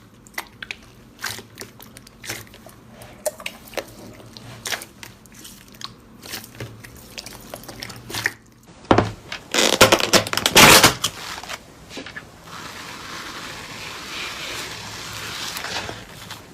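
Crunchy slime being worked by hand: a run of small clicks and pops, then a louder, denser crackling squish about nine seconds in, settling into a soft steady hiss.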